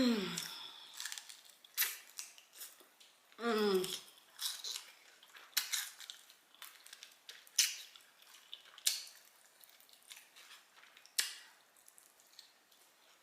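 Close-miked chewing of fried chicken: sharp crunches and wet mouth clicks every second or so, with a short falling hum from the eater about four seconds in.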